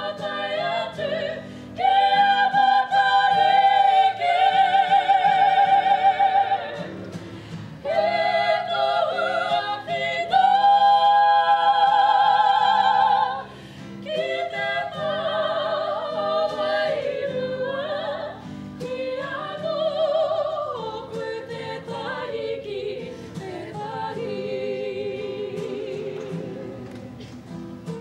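Kapa haka group of women singing a Māori waiata together, with a wavering vibrato on long held notes. Two loud phrases fill the first half, then the singing turns softer from about halfway.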